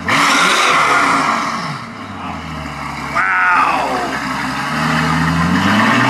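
Mercedes-AMG S65's twin-turbo V12 revved at a standstill through a catless exhaust with its valves open. A sharp blip right at the start falls back toward idle, another rev comes about three seconds in, and near the end the revs climb slowly and steadily.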